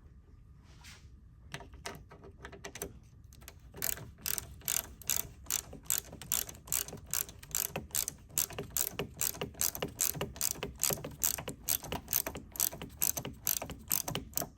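8mm socket ratchet wrench clicking as it loosens the nut on a car battery's negative cable terminal. A few scattered clicks first, then a steady run of about three clicks a second from about four seconds in.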